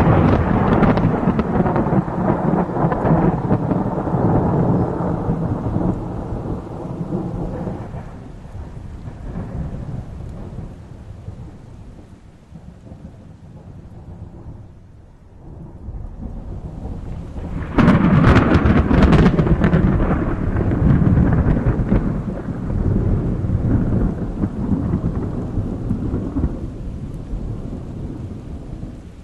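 Violent thunderstorm: a long roll of thunder dies away over the first dozen seconds. About eighteen seconds in, a sudden sharp crack of thunder breaks out and trails off into a long rumble.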